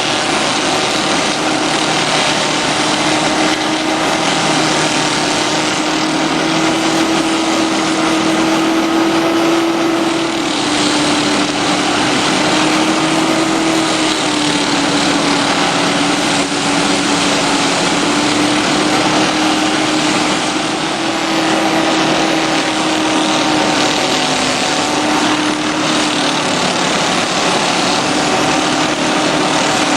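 Carlton SP2000 stump grinder's petrol engine running steadily at high speed, its pitch sagging slightly a few times.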